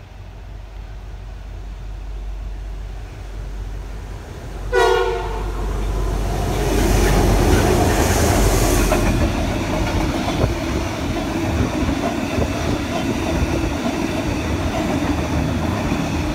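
Aurizon diesel locomotives approaching and passing with a ballast train: a short horn blast about five seconds in, then the locomotives loudest as they go by at about seven to nine seconds, followed by a steady rumble of loaded ballast wagons rolling past.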